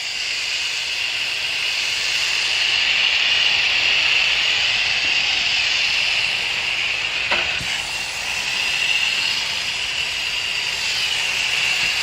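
Hose-end sprayer on a garden hose spraying foaming coil cleaner onto an air conditioner condenser coil: a steady hiss of spray.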